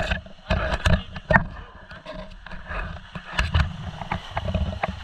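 Surf washing over rocks and wind rumbling in uneven gusts on a close action-camera microphone, with many sharp clicks and knocks of handling near the mic.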